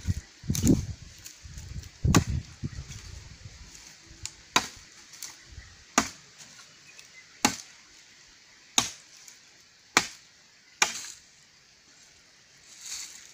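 Machete chopping into a wooden stick: about eight sharp strikes, roughly one every second and a half, the first two fuller and heavier than the rest.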